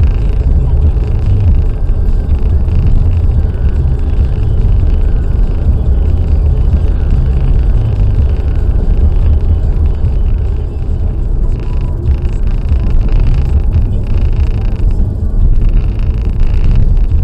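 Steady, loud low rumble of a car driving at speed on a motorway: road and engine noise.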